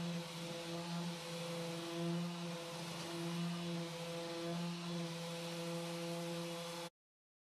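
Dual-action orbital sander running with 180-grit paper on body filler: a steady motor hum under the hiss of the abrasive. It cuts off suddenly near the end.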